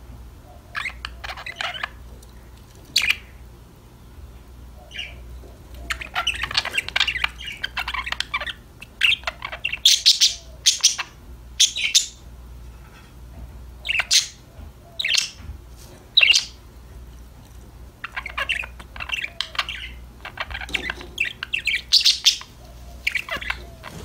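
Budgerigars chirping and warbling in bursts of chatter, broken by several short, sharp, loud calls.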